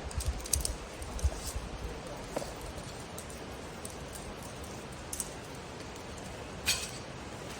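Metal climbing gear clinking: carabiners and camming devices on a trad rack knocking together in a handful of separate sharp clinks, the loudest near the end. Wind rumbles on the microphone in the first two seconds.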